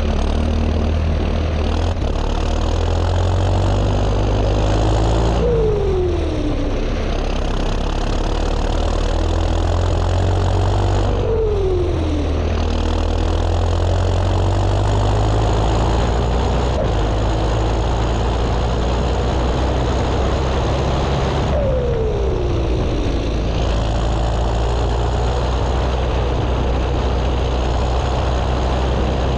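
Chipped (remapped) John Deere 6230 tractor's turbocharged diesel engine running steadily under load while pulling a loaded muck spreader. Three times a whine falls in pitch over about a second as the engine's note shifts.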